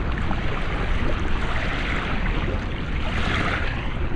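Water rushing and splashing over a Crittercam strapped to a sea lion as it handles a large octopus at the surface. A steady wash of noise swells louder about one and a half seconds in and again at about three and a half seconds.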